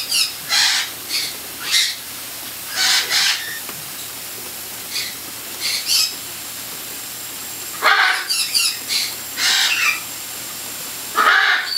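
Several cockatiels squawking, a run of short, harsh calls that come and go in bouts, the loudest just before 8 seconds in and again near the end.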